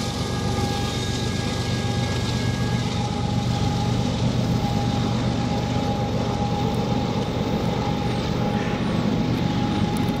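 Steady rumble of a loaded freight train rolling along the rails, with a continuous high ringing tone over it.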